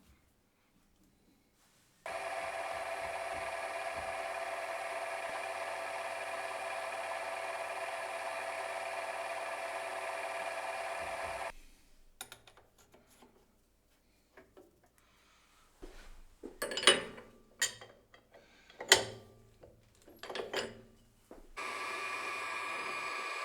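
Milling head on an Optimum TU3008G lathe running, a steady whine of several tones that starts about two seconds in and stops after about ten seconds. After a pause come a few short, loud noises, then the spindle runs again near the end.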